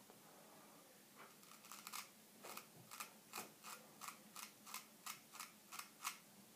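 Shavette straight razor cutting through lathered beard hair in a quick run of about fifteen short scraping strokes, two to three a second, starting about a second in.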